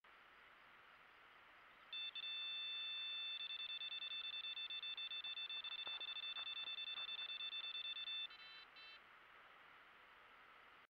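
Electronic carp bite alarm sounding a run. A high tone starts about two seconds in and breaks into a rapid stream of beeps as a fish takes line. It ends in a few separate beeps and stops.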